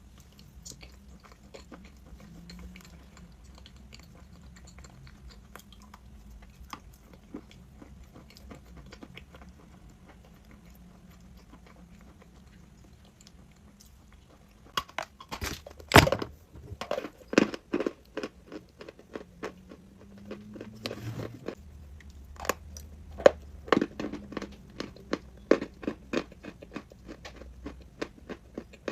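A person biting and chewing crunchy chalk close to the microphone: faint soft chewing clicks for about the first half, then loud, sharp, irregular crunches from about halfway through.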